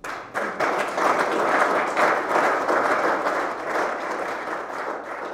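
Audience applauding, a dense patter of many hands clapping that breaks out suddenly and slowly thins out near the end.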